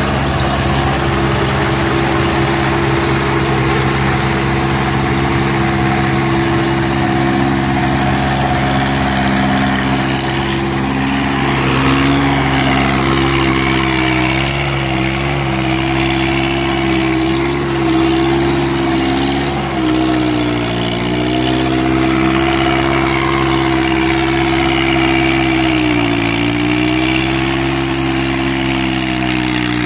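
VST Shakti MT 180 mini tractor's diesel engine running steadily under load while pulling a heavy rotavator through the soil. Its pitch sags briefly three times as the load bites, and it recovers each time.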